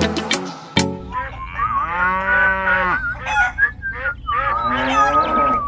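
Music with sharp plucked notes for about the first second, then a long cow moo, with other wavering higher animal calls after it.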